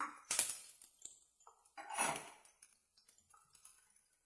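A cooking spoon clinking and scraping against a pot while onions and green chillies are stirred in oil: two louder clinks, about half a second and two seconds in, with lighter taps between.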